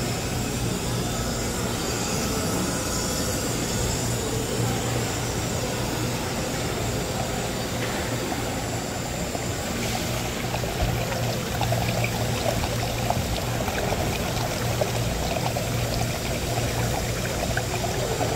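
Water pouring and trickling steadily, over a low steady hum.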